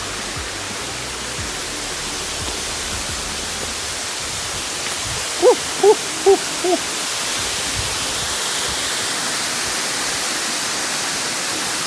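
Steady rush of water from a mountain stream and waterfall. About halfway through, four short hooting calls sound in quick succession over it.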